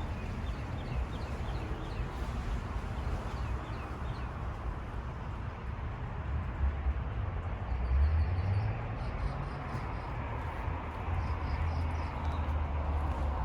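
Outdoor ambience: small birds chirping in short repeated calls over a steady low rumble and hiss.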